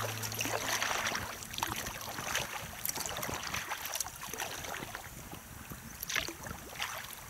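Sea kayak paddling on calm water: the paddle blades dip and splash at irregular intervals, roughly once or twice a second.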